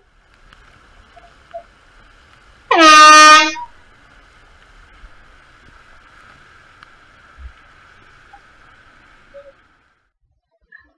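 One loud blast of about a second from a signal horn, a low buzzy tone rising slightly as it starts, marking the last 10 seconds of a rider's run. A faint steady hiss runs beneath it.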